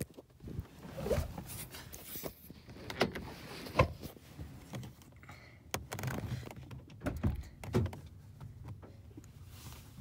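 Someone shifting and crouching in a car's back seat: irregular thumps, rustles and clicks of body and phone against the seat and door trim, the loudest about four seconds in and a few more near seven and eight seconds.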